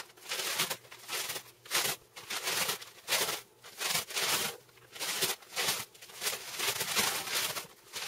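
Newspaper sheets being crumpled and stuffed into the gaps of a cardboard box as packing, a rustling crinkle in short repeated bursts, about one or two a second.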